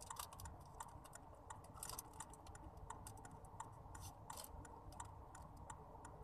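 Faint chewing of a hotdog: irregular small mouth clicks and smacks, over a low steady rumble.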